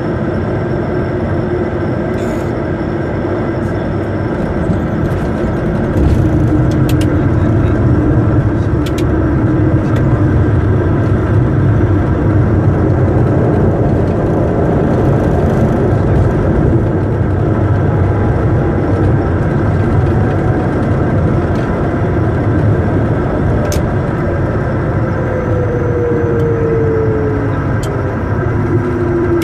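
Cockpit noise of a Bombardier Challenger 350 on its landing rollout: the Honeywell HTF7350 turbofans and the rush of the runway, a low rumble that gets louder about six seconds in. Near the end a whine falls steadily in pitch as the engines and the jet slow down.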